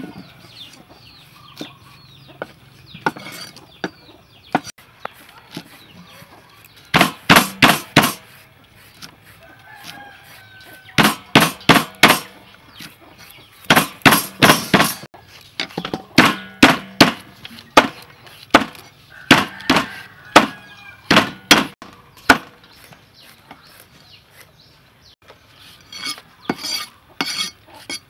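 Cleaver chopping long beans on a wooden chopping block, in quick runs of sharp strikes with pauses between them. Chickens cluck in the background.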